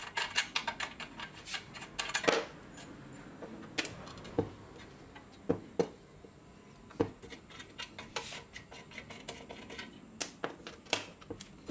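Irregular clicks and clinks of small metal parts being handled and set down on a hard tabletop while an old circular saw is taken apart.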